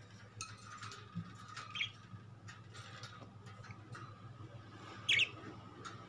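Budgerigars chirping in their cage: a short chirp about two seconds in and a louder, sharper chirp about five seconds in.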